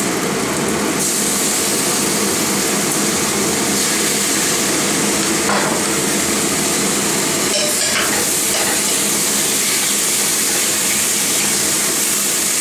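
Potatoes and dark soy sauce sizzling in a hot clay pot while being stirred with a wooden spoon, a steady hiss with a few soft knocks of the spoon against the pot. The soy sauce is browning the potatoes over high heat.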